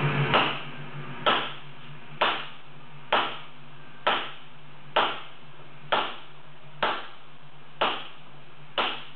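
A hand hammer striking hot wrought iron in the forging of an anvil, about ten even blows at roughly one a second, each a sharp strike with a short ring. A steady low hum runs underneath.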